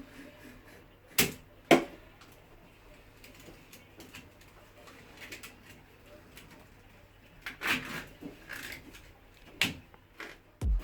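Handling noise as the scored outer PVC sheath is worked off a steel wire armoured cable: two sharp knocks a little over a second in, a stretch of scraping and rustling later on, and another knock near the end.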